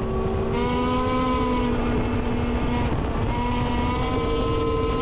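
Snowmobile engine running steadily as the sled speeds across lake slush, a loud drone over the rush of the track, its pitch stepping up slightly about half a second in.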